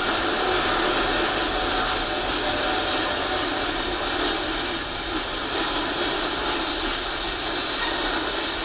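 Freight train hopper cars rolling past, a steady noise of wheels on rail, heard through a television speaker.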